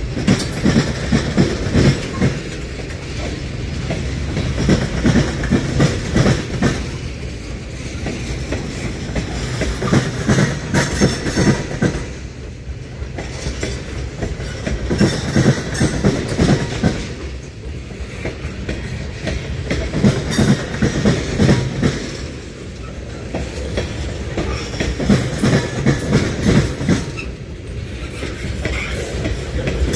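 Wheels of a long mixed freight train of tank cars and coal and grain cars rolling slowly past, clacking over rail joints in clusters about every four to five seconds as each car goes by, over a steady rumble.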